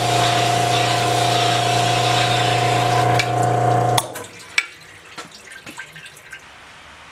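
Cylinder honing machine running with its stones stroking in the cast-iron bore of a Willys L134 block, honing oil flowing: a steady hum with a held tone that cuts off suddenly about four seconds in. Scattered drips and light clicks follow as the hone comes out of the bore.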